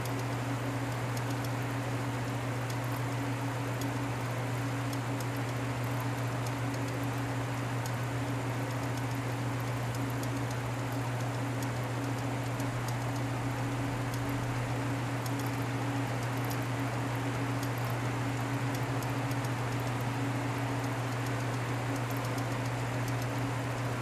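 1933 Frigidaire condensing unit running steadily, its electric motor and compressor giving an even low hum while the system is being charged with refrigerant. Rain patters in the background.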